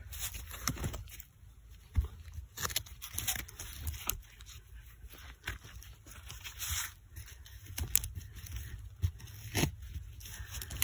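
A gloved hand digging in soil among roots: irregular scraping and crackling of dirt and roots, with small knocks.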